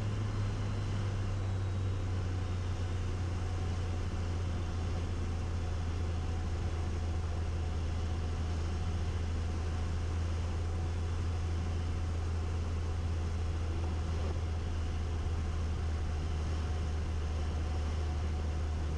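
A Cessna 180's six-cylinder Continental O-470 engine and propeller holding a steady low drone during a short approach to landing.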